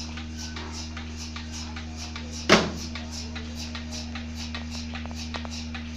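Milking machine running: its vacuum pump gives a steady low hum and the pulsator a regular ticking hiss, about three a second. One sharp knock about two and a half seconds in.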